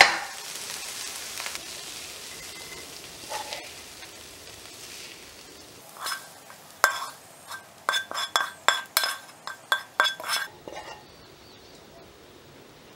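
Ground beef sizzling in a frying pan, dying away over the first half. Then a quick series of clinks and scrapes as a spatula scrapes the cooked meat out of the pan onto a plate, the pan and plate ringing briefly at each knock.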